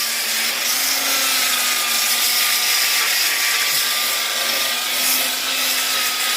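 Black & Decker electric polisher-sander running steadily while sanding a purple ipê wooden spout: a constant motor whine, with pitch shifting slightly under the hand's pressure, over a dense sanding hiss.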